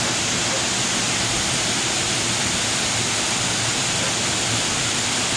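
Waterfall pouring down a rock face onto boulders and into a pool, heard close by as a steady, even rush of water.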